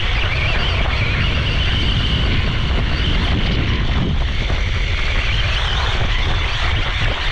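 Electric motor whine of a LOSI Promoto MX RC dirt bike, wavering up and down with the throttle, under heavy wind rumble on the on-board GoPro's microphone.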